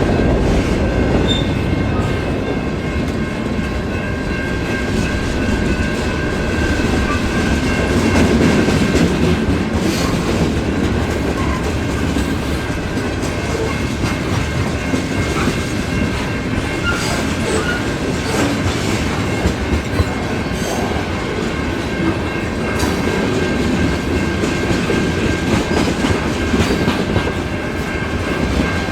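Freight train rolling past: steady rumble of the cars with scattered clicks of wheels over rail joints and a thin, steady high squeal from the wheels.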